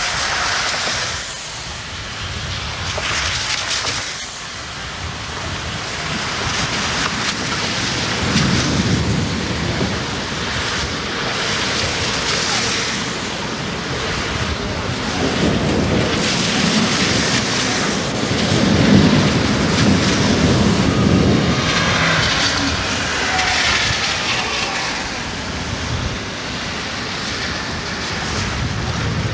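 Strong wind buffeting the camcorder microphone, a rushing noise that swells and eases in gusts every few seconds.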